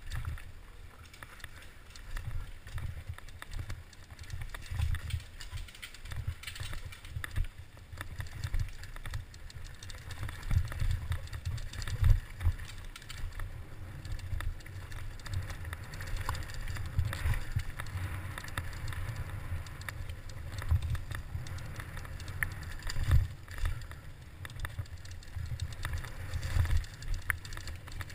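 Giant Faith 2 downhill mountain bike ridden fast down a rough dirt trail: a steady low, muffled rumble of tyres and wind, broken by frequent knocks and rattles as it hits rocks and bumps, with the sharpest jolt about twelve seconds in.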